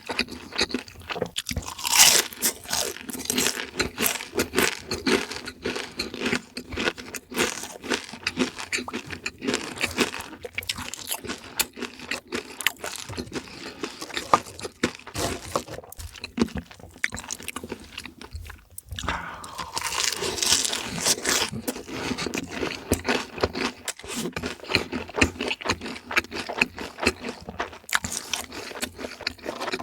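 Crunchy fried chicken being bitten and chewed close to the microphone: dense, irregular crackling crunches, with louder bites about two seconds in and again around twenty seconds in.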